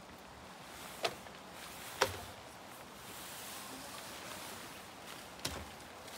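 A one-touch pop-up tent being raised on wooden decking: its fabric rustling and its base poles being spread, with three sharp knocks on the deck, the loudest about two seconds in.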